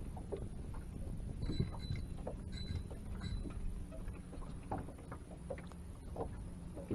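Low, steady rumble of wind and water around a small boat on open water, with scattered small clicks of fishing tackle being handled.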